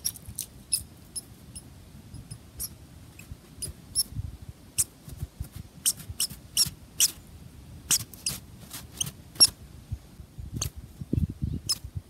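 Scattered short, high-pitched chirps from small animals, sometimes several in quick succession, with soft low crunching in the snow near the end.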